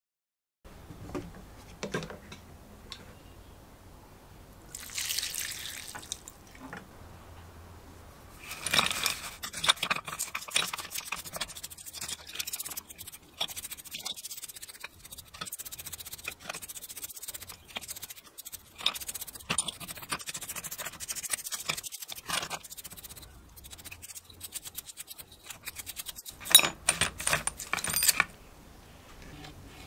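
A brush scrubbing hand-drill gears and shafts in a shallow bowl of solvent: wet, uneven brushing strokes with occasional sharp clicks, loudest in a burst near the end.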